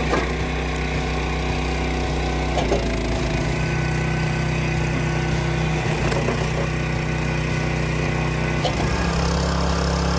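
An engine running steadily at constant speed, with a few short cracks over it.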